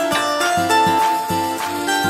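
Background music: an instrumental tune of clear melody notes over a regular bass beat.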